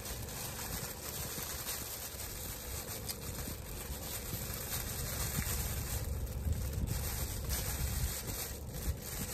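Thin plastic bag crinkling in bursts as noodles and bean sprouts are squeezed out of it into a paper soup cup, over a steady low rumble inside a car.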